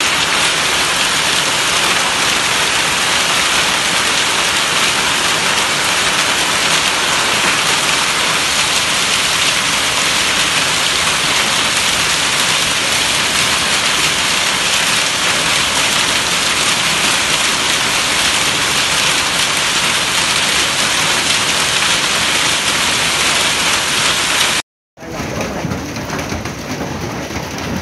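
Hail and heavy rain pelting down in a dense, steady hiss. After a short cut near the end, quieter rain is heard from inside a car.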